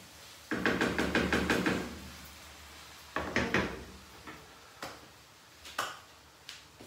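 Wooden spatula stirring food in a frying pan on a glass-ceramic hob, knocking against the pan in quick strokes for about a second and a half, then a second short burst of strokes about three seconds in, followed by a few single knocks.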